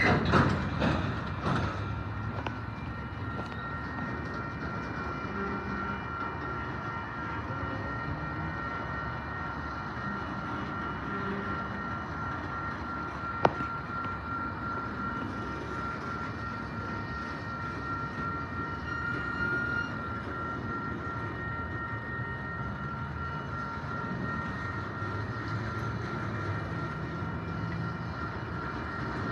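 Freight train of autorack cars rolling slowly past on steel wheels: a steady rumble under a continuous high-pitched metallic squeal from the running gear. A few loud clanks sound at the very start, and a single sharp click comes about halfway through.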